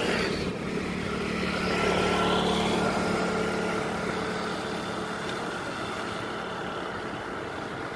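Small motor scooter passing close and pulling away ahead: a steady engine hum, loudest about two seconds in and fading slowly as it draws away, over wind and tyre noise.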